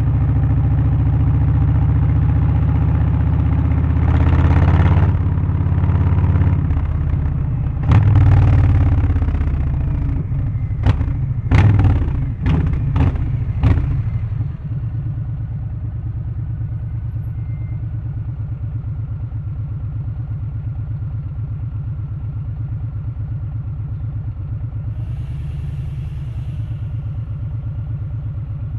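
Harley-Davidson Low Rider ST's Milwaukee-Eight 117 V-twin with a Stage 1 tune, remapped with an aftermarket exhaust and air filter, revving up and down. About halfway through it gives several quick, sharp throttle blips, then settles into a steady idle.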